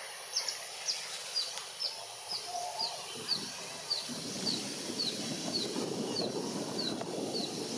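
A bird repeating a short, high, downward-sliding chirp about twice a second, over a steady high hiss; a low rumble comes in about halfway through.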